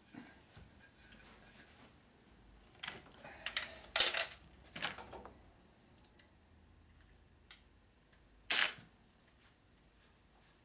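A few sharp metal clinks and knocks as the engine case and a drill-mounted cutter are handled and set in place, the loudest about four seconds in and another past eight seconds. The drill is not running.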